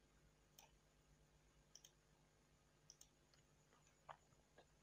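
Near silence with several faint, scattered computer mouse clicks.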